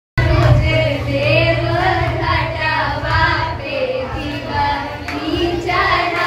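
Girls singing a chhath geet, a Bhojpuri devotional folk song, into a microphone. The melody is held in long, bending notes over a steady low hum.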